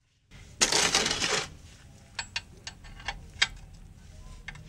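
Handling and clinking of a 17 mm ring wrench being set on an engine oil pan's drain plug: a loud rustling burst about a second long, then a handful of short sharp clicks spaced out over the next few seconds.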